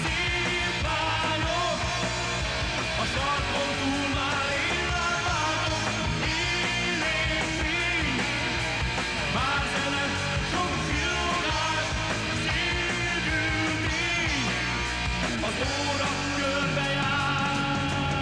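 Hard rock band playing, with electric guitar, bass and drums. A lead line bends up and down in pitch over the steady backing.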